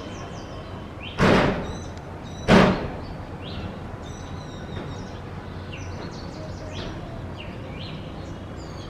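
Two sudden loud thumps about a second apart, over faint, scattered chirps of small birds.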